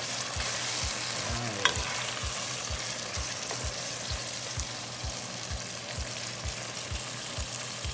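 Pork belly sizzling in its own rendered fat as coconut milk is poured in and stirred with a spatula.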